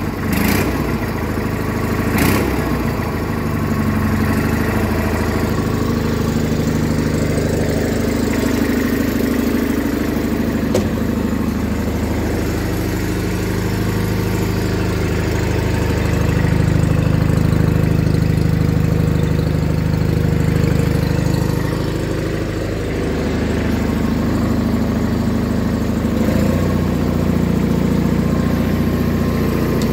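John Deere 420 garden tractor's Onan two-cylinder engine running steadily after a drive shaft replacement. There are a couple of sharp clicks in the first few seconds, and the engine gets somewhat louder for several seconds past the middle before easing back.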